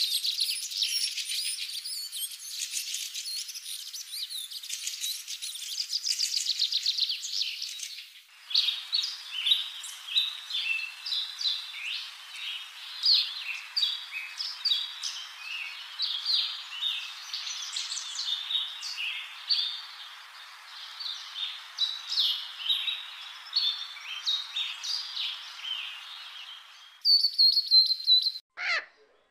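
Small songbirds chirping and singing in rapid high-pitched phrases. About eight seconds in the sound cuts to a different recording: a busy mix of short chirps over a steady hiss. Near the end it changes again to a brief high whistled note.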